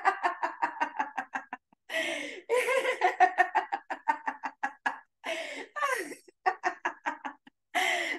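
A woman laughing aloud in several runs of quick, rhythmic 'ha-ha-ha' pulses with brief pauses between: deliberate laughter-yoga laughing.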